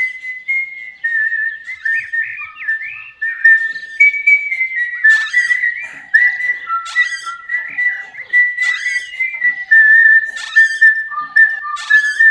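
A whistled melody of held notes with short slides between them, with a rhythmic accompaniment of short sharp beats joining about five seconds in.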